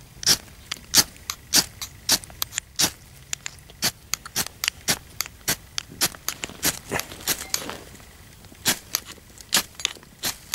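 Knife struck again and again down a homemade firesteel (ferrocerium rod) to throw sparks into magnesium and wood shavings: short, sharp scrapes, about two or three a second, with a brief pause a little past the middle.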